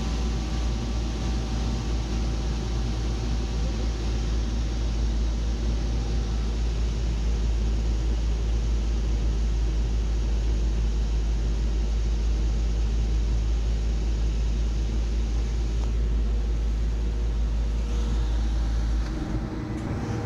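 Infiniti G37's 3.7-litre V6 engine idling steadily, with a heavy low rumble that drops away near the end.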